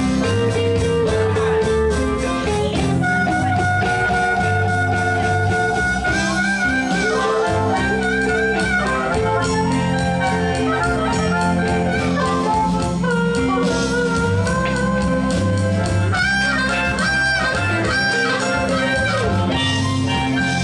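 Background music: a blues-style instrumental with guitar over a steady beat, and a held, wavering melody line on top.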